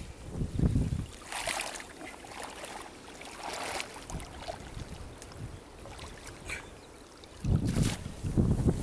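Water sloshing and splashing around a man wading out through shallow water to set an eel net, with low gusts of wind buffeting the microphone near the end.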